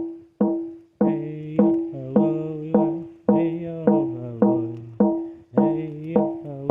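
Outro music: a plucked or struck melodic instrument plays repeating notes at a steady beat, with a bass line coming in about a second in.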